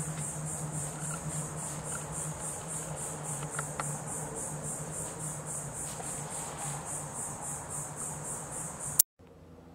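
Insects calling: a steady high-pitched chirring that pulses in an even rhythm, which cuts off abruptly with a click near the end.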